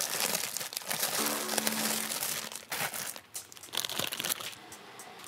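Plastic instant-ramen packets rustling and crinkling as they are handled, in irregular bursts through the first three seconds and again briefly about four seconds in.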